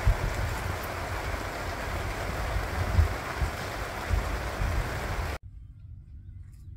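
Steady rain falling on the plastic-sheeted roof of a tent, heard from inside, with a few low thumps mixed in. It cuts off suddenly about five seconds in, leaving faint outdoor quiet.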